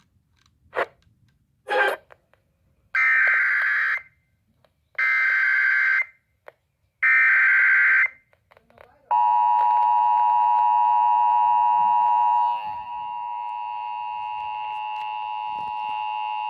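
Emergency Alert System activation: three screeching SAME header data bursts, each about a second long with a second's gap, then the steady, harsh EAS attention tone, which drops in level partway through. It signals that an emergency warning message follows.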